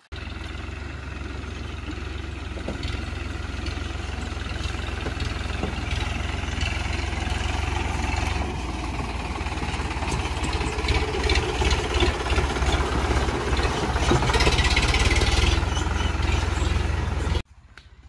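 Tractor diesel engine running with a steady low rumble, getting louder over the first several seconds.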